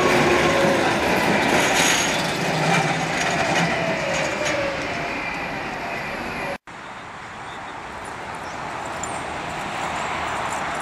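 Breda low-floor tram running past close by and drawing away, a rumble of wheels on rails with faint whining tones that slide down in pitch. About two-thirds through the sound cuts out for an instant and gives way to quieter, steady street noise.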